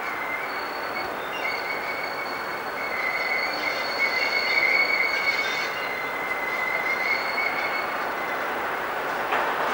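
Steel wheels of a slow-moving diesel locomotive squealing against the rails, a steady high-pitched screech over the rumble of the train. It sets in about half a second in, is loudest around the middle and dies away near the end.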